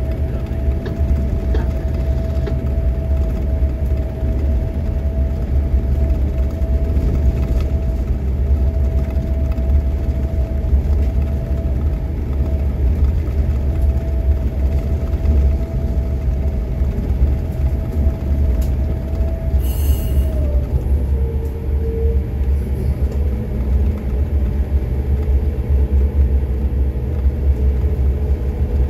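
Diesel engines of a tugboat pushing a container barge, running under way with a steady deep rumble and a steady whine on top that drops in pitch about two-thirds of the way through.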